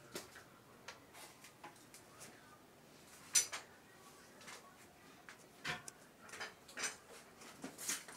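Scattered light clicks and taps, the sharpest about three and a half seconds in, with a cluster of softer knocks in the last few seconds.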